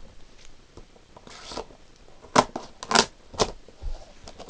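Clear plastic blister packaging crackling and crinkling as it is flexed and pried by hand, with several sharp crackles in the second half, the loudest about halfway through.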